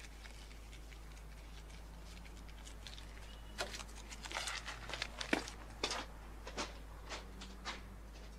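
Footsteps on gravel railway ballast, a person walking at about two steps a second, starting about three and a half seconds in and dying away near the end, over a faint steady hum.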